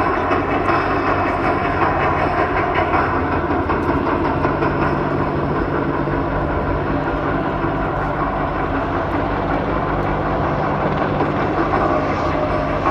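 Military helicopters flying close, a steady, loud, rapid rotor beat over a constant engine hum.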